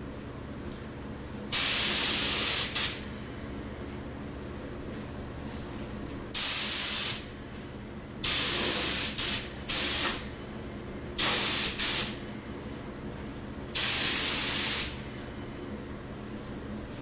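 Gravity-feed paint spray gun hissing in six separate bursts of about a second each as the trigger is pulled and released, spraying paint onto a car hardtop panel.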